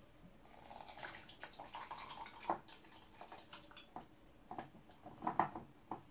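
Hands handling and fitting small plastic parts together: a scatter of light clicks, taps and rustles, with the sharpest taps about two and a half seconds in and again near the end.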